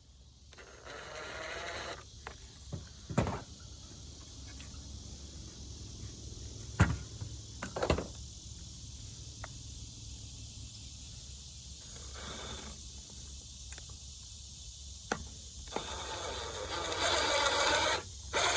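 Scattered sharp knocks and clicks with short stretches of scraping, from screws being pushed through a solar-panel mount and the hardware being handled.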